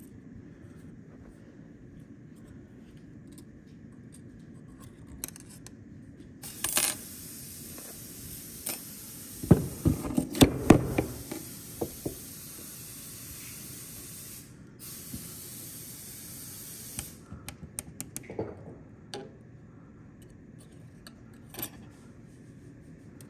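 Metal clinks and clatter of a piston and broken piston-ring pieces being handled on a steel workbench, loudest about ten seconds in, with scattered lighter clicks later. A steady hiss runs through the middle of the stretch.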